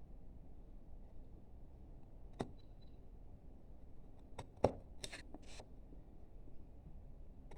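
Hand carving chisel or gouge working wood: a few sharp clicks and snicks as the blade bites, the loudest about halfway through, followed by a couple of short scraping cuts.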